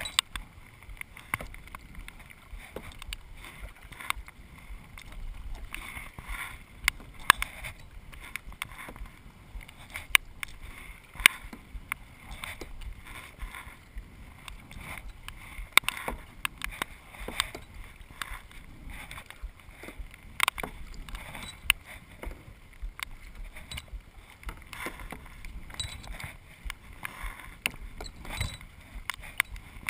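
Kayak paddling on calm water: the paddle blades dip and splash, with frequent irregular sharp knocks and clicks.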